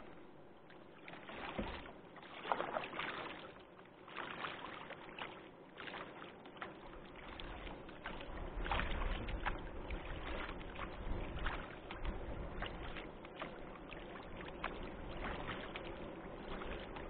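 Kayak paddle strokes in the water: irregular splashes and drips, with a low rumble underneath from about halfway through.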